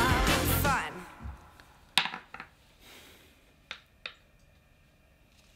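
Background music ending about a second in, then a few sharp, light clicks and taps of board-game pieces and cards being handled on a tabletop.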